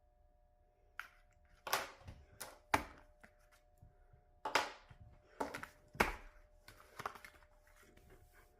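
A lighter being clicked over and over, about eight sharp, irregular clicks, each with a short rasp.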